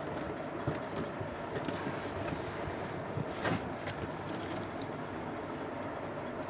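Light handling of a cardboard carton and paper: faint rustles and small clicks, with one brief louder scrape about three and a half seconds in, over a steady background hiss.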